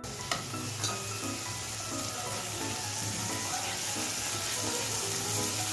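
Onions, tomatoes and green chillies sizzling steadily in mustard oil in a nonstick kadai. A wooden spatula knocks and scrapes against the pan a couple of times in the first second as it stirs.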